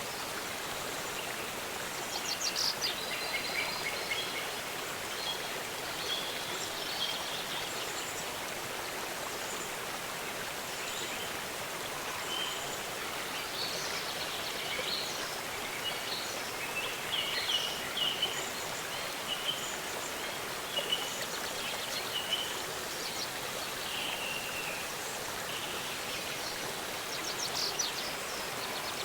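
A waterfall's steady rush of water, with birds calling over it in short high chirps and trills every few seconds.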